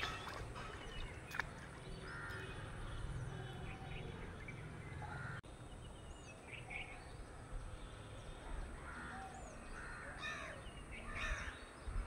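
Outdoor ambience with birds calling: scattered short calls and a few quick high chirps over a steady low background hum, with a sudden brief break in the sound about five seconds in.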